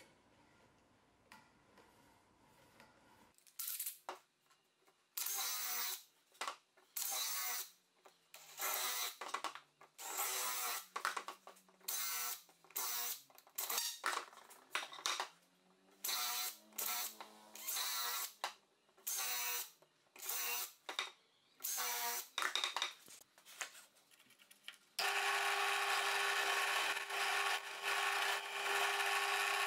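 Cordless drill run in about twenty short trigger bursts, its motor whirring up and falling back each time. About 25 seconds in, a bench drill press starts and runs steadily as it bores into the wood.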